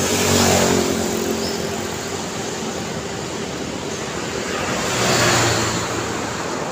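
Night street traffic: a motorcycle passes close about half a second in, its engine note falling as it goes by, and a car passes about five seconds in, over a steady hum of traffic further off.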